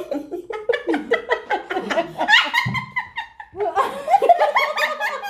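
Several women laughing together in quick, overlapping bursts of giggles and chuckles.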